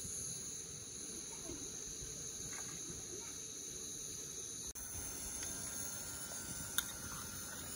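Crickets chirring steadily in a continuous chorus, with one light click near the end.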